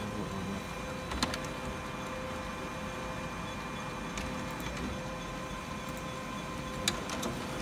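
HP LaserJet CP1025nw colour laser printer running a print job, a steady hum with a faint whine, printing its supplies status report. A few sharp clicks come about a second in and twice near the end.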